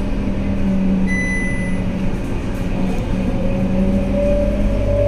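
Scania K230UB bus engine and ZF Ecomat automatic gearbox running, heard from inside the passenger cabin, with a whine that rises slightly in pitch over the last couple of seconds. A single high electronic beep sounds about a second in and lasts just under a second.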